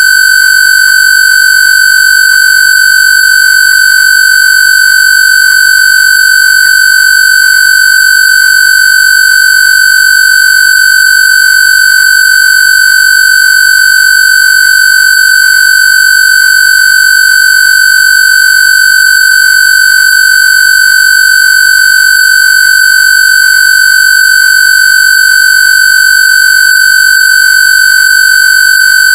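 Loud, steady electronic square-wave tone: one high, unchanging pitch with a bright, buzzy edge, played as a Rife/AWG 'healing frequency' tone.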